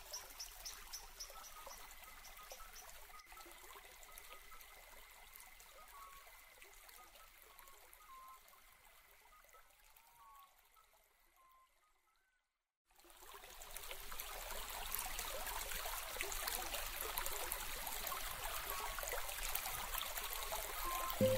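Faint ambient nature sound: small bird-like chirps over a low hiss, cutting out to silence about halfway, then returning as a steady trickling stream of water.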